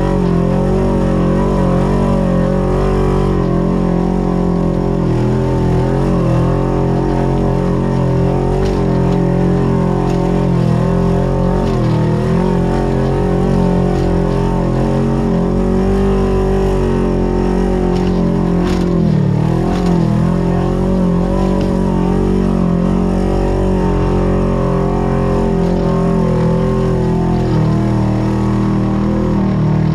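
Off-road vehicle's engine running at fairly steady revs, its pitch wavering a little and dipping briefly before picking back up about nineteen seconds in.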